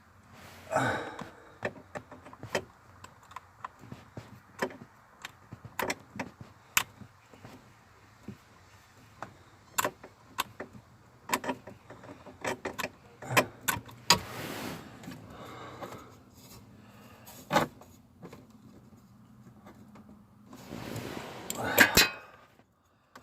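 Irregular metallic clicks, clinks and knocks of hand tools and parts being handled while working under a car's steering column, with a couple of short rustling scrapes.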